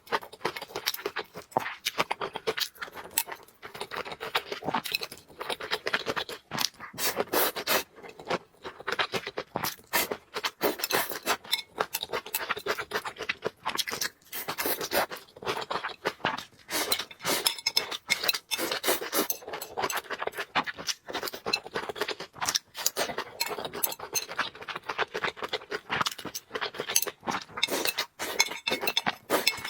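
Close-miked eating sounds: a dense, irregular run of wet chewing clicks and mouth sounds over noodles, with utensils scraping and clinking against a bowl.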